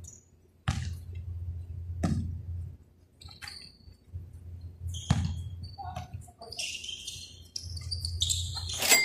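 Basketball bouncing on a hard court, three separate bounces, with sneakers squeaking on the floor in between and a louder run of squeaks near the end, over a steady low hum.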